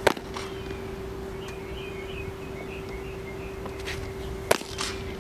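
Two pitched baseballs popping into a catcher's mitt, about four and a half seconds apart, each a single sharp smack. A steady hum runs underneath, with faint chirping between the two pops.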